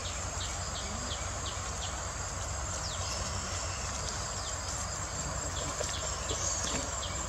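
Insects calling in a steady high-pitched drone, with short falling chirps repeating over it and a steady low rumble underneath.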